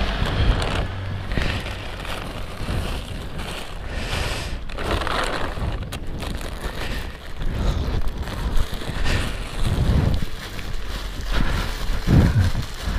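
Plastic bags of packaged snacks rustling and crinkling as they are handled and carried, with wind on the microphone.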